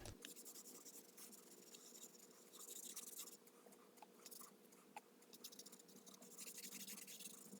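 Near silence, broken twice by faint scratchy rubbing of wood stain being worked onto a wooden box.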